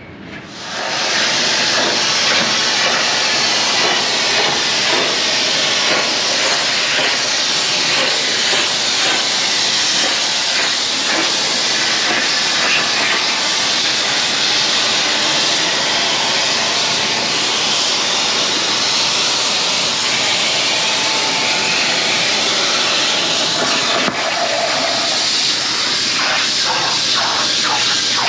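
Plasma cutter cutting 1/16-inch mild steel sheet into window-mount strips: a loud, steady hiss that starts about half a second in and runs on with only a brief break near the end.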